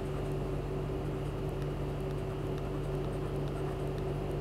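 Steady low background hum with a couple of constant tones, and faint light ticks of a stylus writing on a tablet screen.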